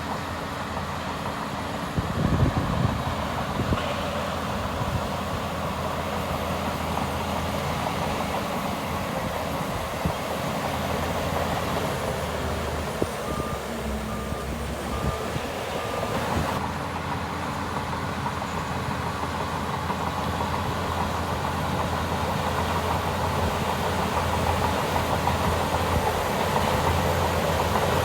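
Heavy diesel earthmoving machinery, a bulldozer and dump truck, running steadily. A few knocks come about two seconds in, and a short run of reversing-alarm beeps sounds about halfway.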